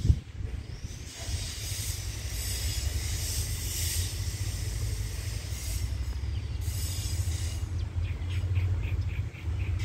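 Distant Alstom diesel-electric locomotive approaching along the track, a low rumble slowly growing louder under a steady high hiss. A short run of quick chirps comes about seven seconds in.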